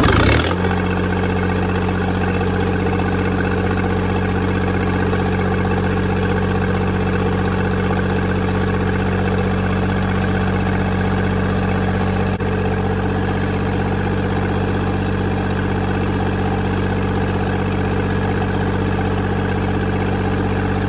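Lister diesel engine catching on its first start after its injectors were bled, flaring briefly and then settling into a steady idle.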